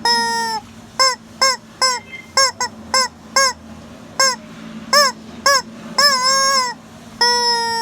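A hen calling loudly and over and over: short, arched, honking squawks about two a second, broken by longer drawn-out calls at the start and twice near the end.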